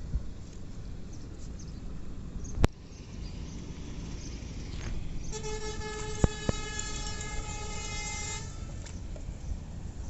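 A horn sounds one steady note for about three seconds, starting about five seconds in, over a constant outdoor background hiss. A few sharp clicks stand out, one before the horn and two during it.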